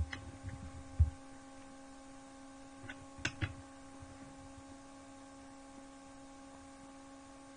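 Steady electrical hum, with a low thump about a second in and a few short clicks around three seconds in.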